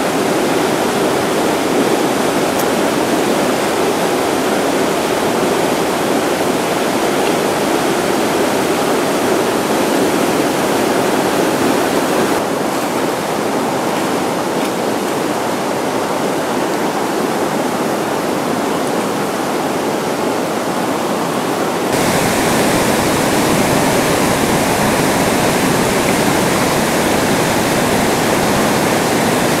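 Class III–IV whitewater rapids rushing steadily over rocks, a dense continuous roar of river water. The sound changes abruptly twice, becoming deeper and a little louder about two-thirds of the way in.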